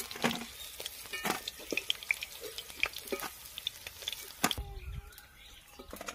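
Fried rui fish being lifted out of hot mustard oil in a steel kadai with a flat metal spatula. The oil crackles, and the spatula clicks and scrapes against the wok and a steel plate. A sharper knock comes about four and a half seconds in, and after it the sound goes quieter.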